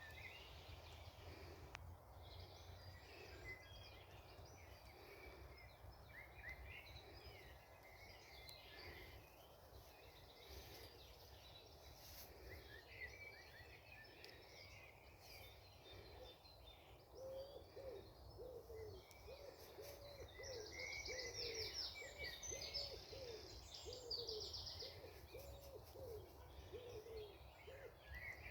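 Faint chorus of small birds singing and chirping. Past the middle a low call repeats about twice a second, with quick high trills running through it.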